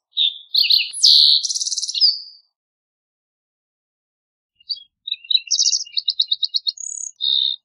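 Green-tailed towhee singing two song phrases about two seconds apart, each a run of sliding notes and quick trills.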